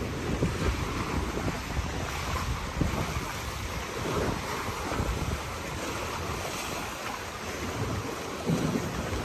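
Choppy lagoon water splashing against a stone seawall and pier, with gusty wind buffeting the microphone.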